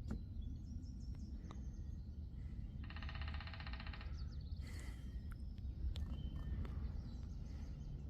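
Wild birds calling, with one longer call about a second long about three seconds in, over a steady low outdoor rumble.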